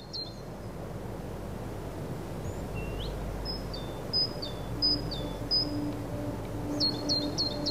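Small songbird chirping in short, quick phrases of sharp high notes, repeated several times over a steady outdoor hiss. About five seconds in, a low held musical note comes in softly underneath.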